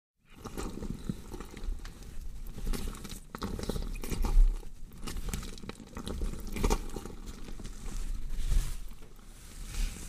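Horror sound effect of a body being dissected: flesh being cut and torn, a steady run of irregular crunching and crackling with a couple of heavier low thuds, one about four and a half seconds in and one near eight and a half.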